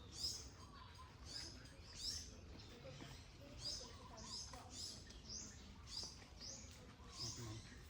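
A bird calling over and over, a short high chirp that drops in pitch, repeated about once or twice a second, over faint low background noise.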